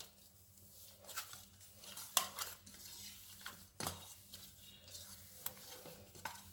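Corn-flour dough kneaded by hand in a stainless steel bowl: faint rubbing with scattered light clinks and knocks against the steel, the clearest about two and four seconds in.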